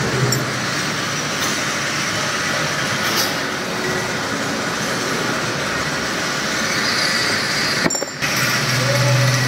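Steady din of machine-shop machinery running, CNC turning lathes among it. It cuts out briefly about eight seconds in, and a low steady hum comes in just after.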